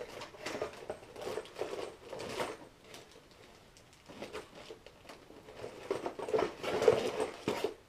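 Rummaging through a cardboard shipping box, rustling and scraping the packaging inside, with a quieter spell about three seconds in and the busiest, loudest handling near the end.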